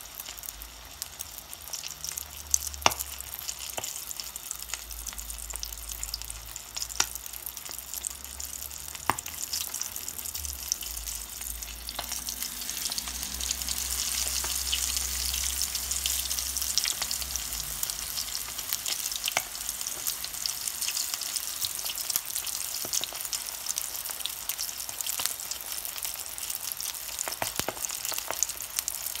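Kokoreç-filled yufka börek deep-frying in a pan of hot oil: a steady crackling sizzle with scattered sharp pops, swelling louder about halfway through.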